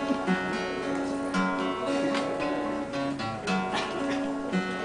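Acoustic guitar strummed solo, chords struck again every second or so, as the instrumental introduction to a folk song.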